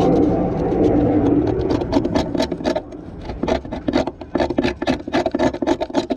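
A hand tool scraping the rusted steel floor pan of a Mercedes W126. It is continuous at first, turns into quick strokes about four a second, then stops suddenly near the end.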